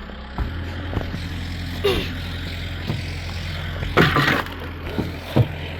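Engine of the buggy pulling the rye crimper, running with a steady low hum that gets louder about half a second in as the vehicle sets off. Scattered knocks and clatter run through it, with a brief louder burst of noise about four seconds in.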